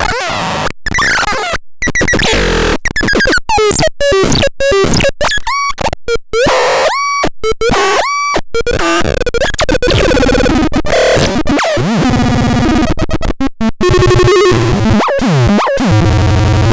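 Chaotic electronic noise-synth sounds: chirping, bird-like pitch sweeps and buzzing tones that stutter and cut in and out, stopping abruptly at the end.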